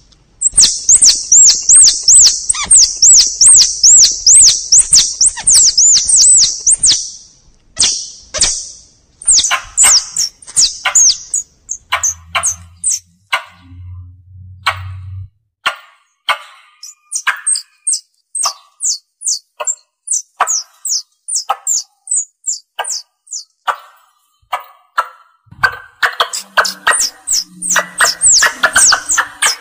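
Squirrel lure call: loud, high-pitched chirps repeated in rapid series, with brief pauses between runs. The chirps come densest in the first few seconds and again near the end, and are spaced more slowly in between.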